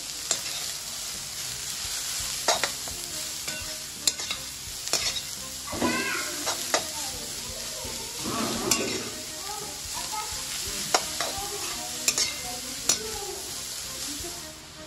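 Shredded cabbage sizzling in hot oil in a frying pan while a steel spatula stirs it, scraping and knocking against the pan every second or two.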